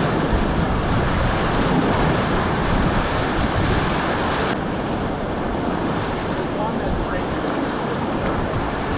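Whitewater rapids of the South Fork Payette at high water rushing and splashing around an inflatable raft, with wind buffeting the microphone. About halfway through the sound turns duller as the higher hiss drops away.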